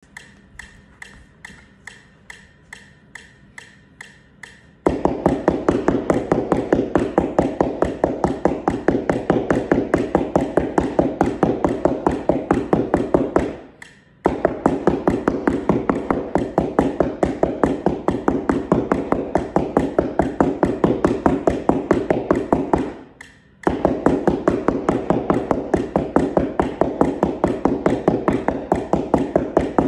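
Two mallets striking a flat cardboard keyboard practice mat in fast, even strokes, with a steady click about twice a second alone for the first five seconds before the playing starts. The playing stops briefly twice, around the middle and two-thirds of the way through, while the clicking carries on.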